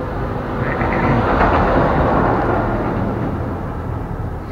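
A vehicle passing by: a broad rumbling noise that swells to its loudest about a second and a half in, then slowly fades.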